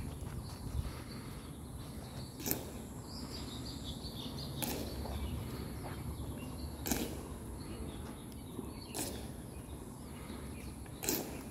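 Honor guards' boots striking the stone pavement together as they march in slow step: five sharp clacks, one about every two seconds.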